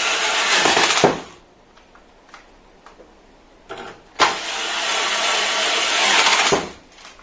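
Small cordless electric screwdriver running in two bursts of about two seconds each while driving screws into the case, with a few faint clicks between. The first burst stops about a second in, and the second runs from about four seconds in to about six and a half.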